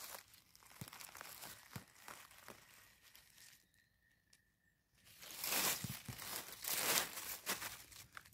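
Dry beech leaves and twigs on the forest floor crackling and rustling as a porcini mushroom is pulled out of the litter by hand: small scattered crackles, a brief quiet spell about halfway, then a couple of seconds of louder rustling.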